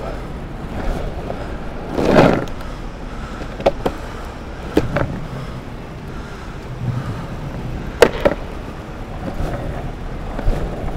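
Longboard wheels rolling over pavement with a steady rumble, a louder rush about two seconds in, and several sharp clacks as the wheels cross joints in the pavement.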